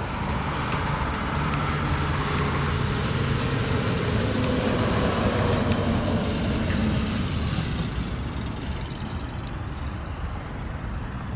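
Motor vehicle rumble that swells over the first several seconds and then eases off, over a steady low hum, with a few faint clicks.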